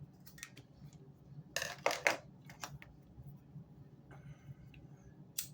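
Hands working on a paracord bracelet: scattered clicks and rustles, with a louder cluster of scraping handling noise about a second and a half in and a sharp click near the end, over a low steady hum.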